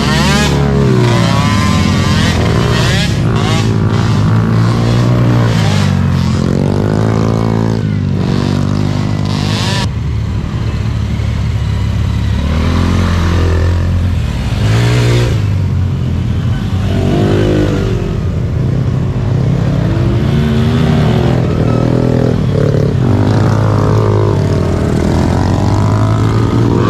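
Small youth peewee ATV engines racing, the pitch repeatedly rising and falling as the throttles are worked, several machines overlapping, with some clatter in the first few seconds.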